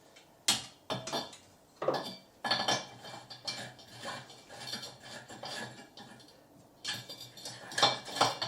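Irregular clinks, clicks and short scraping rattles of a wall sconce's glass and metal parts being handled while a light bulb is swapped, with the loudest clicks about half a second in and near the end.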